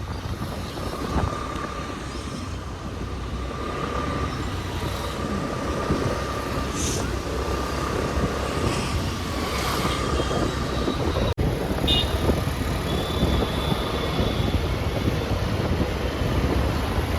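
A motor vehicle running on the road, a steady engine and road noise heard while riding. There is a sudden brief dropout about eleven seconds in.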